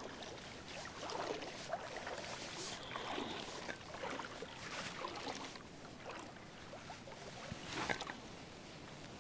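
Shallow lake water sloshing and swishing around a person's legs as he wades out, in uneven surges with a sharper splash near the end.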